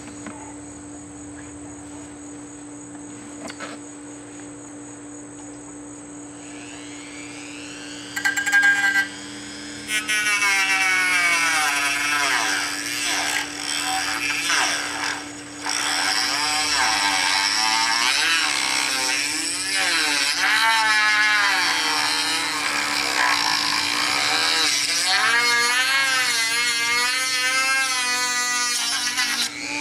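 Dremel rotary tool with a cutoff wheel spinning up about eight seconds in, then cutting into thin black plastic on the compressor tank, its whine rising and falling in pitch as the wheel bites and eases under load. After a short first burst it cuts for most of the rest, stopping just before the end.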